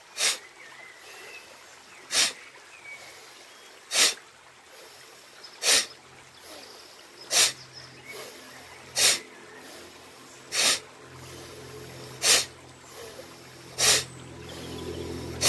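Bhastrika pranayama breathing: a forceful blast of breath out through the nose, repeated at an even pace of about one every 1.7 seconds, roughly nine times.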